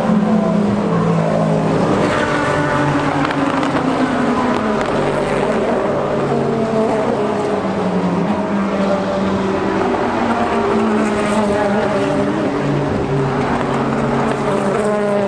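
Several race car engines running at once, their pitches drifting up and down slowly.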